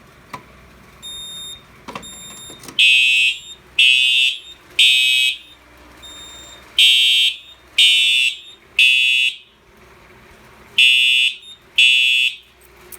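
A Simplex TrueAlert horn sounds in the temporal-three evacuation pattern: three really loud blasts about a second apart, a pause, three more, then two more before it stops. Two short, faint high beeps come just before the horn starts.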